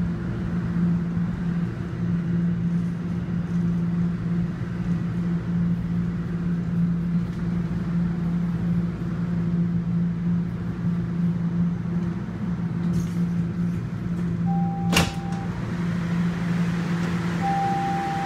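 Subway car standing at a station platform, its equipment giving a steady low hum under a constant rush of noise. About fifteen seconds in a short high beep sounds with a sharp click, and near the end a second beep begins.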